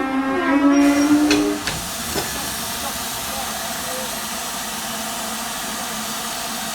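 Model steam locomotive sound: a sustained pitched tone with a few sharp clicks stops about a second and a half in, giving way to a steady steam hiss.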